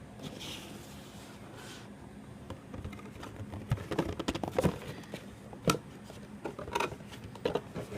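Unboxed items and packaging being moved aside by hand on a tabletop: soft rustling at first, then a run of sharp knocks and clicks as things are picked up and set down in the second half.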